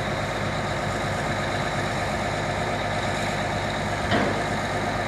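Steady mechanical hum, engine-like, with a brief knock about four seconds in.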